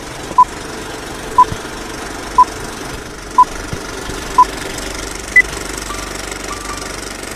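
Electronic countdown beeps: short, identical beeps once a second, then a single higher-pitched beep marking the start, over a steady hiss and hum.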